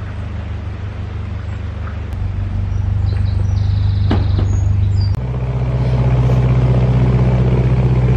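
Narrowboat's diesel engine running steadily, stepping up in speed and getting louder about two seconds in and again about five seconds in. A single knock about four seconds in.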